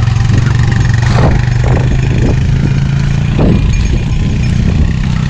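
A steady low engine hum, like a motor idling close by, with a few short higher sounds about one to three and a half seconds in.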